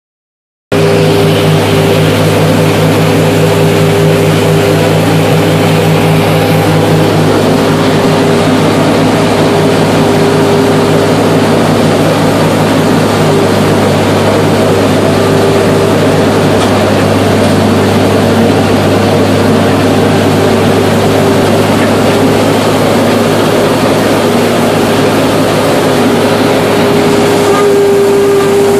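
John Deere 55 combine running steadily under load in the wheat: a constant loud engine and machinery drone with a steady low hum and a higher whine, starting about a second in.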